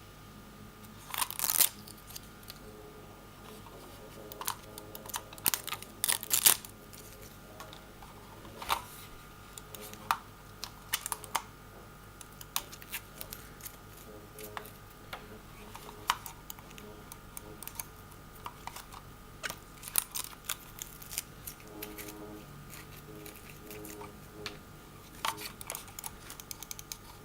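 Hands handling a cordless mouse and its plastic and cardboard packaging: irregular clicks and taps, with a few louder sharp ones about a second and six seconds in, over a faint steady hum.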